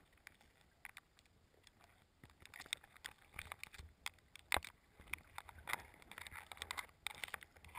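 Faint, irregular little clicks and taps on the camera body, sparse at first and more frequent from about two seconds in, as something brushes or knocks against it.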